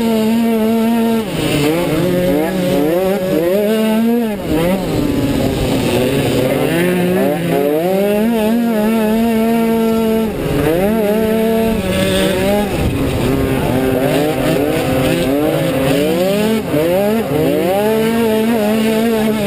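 Automatic cross scooter engine racing flat out on a dirt track, holding a steady high pitch for long stretches, then dropping and climbing back several times as the throttle is eased and reopened. Other scooters run alongside.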